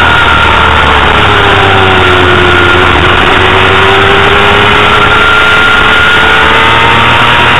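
Honda CBR250RR's high-revving 250 cc inline-four engine heard onboard at racing speed over a dense rushing noise. Its pitch sinks over the first few seconds as the revs drop, then climbs back as it accelerates and holds.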